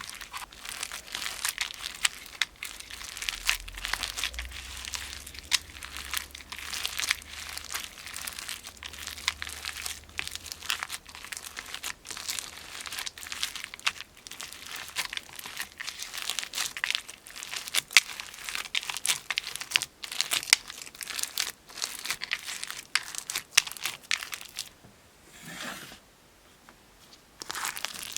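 Crunchy slime squeezed and kneaded by hand: dense, irregular crackling and crunching made of many small sharp snaps close together. It dies down briefly near the end, then starts again.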